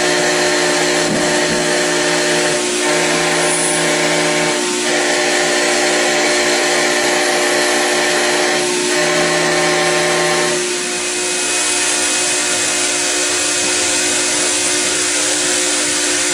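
CNC router spindle running steadily while milling aluminium, with the cutting sound coming in stretches of two to three seconds separated by brief breaks. About eleven seconds in the cutting sound drops away and the machine keeps running steadily.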